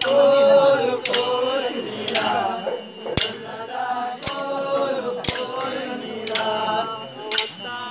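Men singing a chant-like folk song together, with kolata dance sticks struck together in a sharp clack about once a second.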